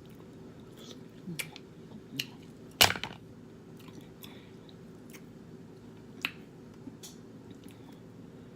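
A person chewing food from a seafood boil close to the microphone, with scattered short wet mouth clicks and smacks; the sharpest click comes about three seconds in.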